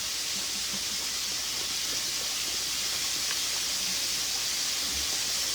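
Hot cooking oil sizzling steadily in a pan on the stove.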